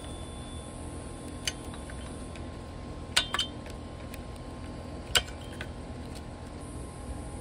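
A few light metallic clicks and clinks of a hand tool against the parts of a STIHL FS200 trimmer's carburetor and engine: one about a second and a half in, a close pair just past three seconds, and a sharper one a little after five seconds, over steady background noise.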